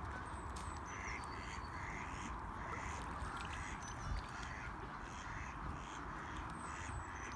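Canada goose giving a run of short, soft conversational calls, about two a second.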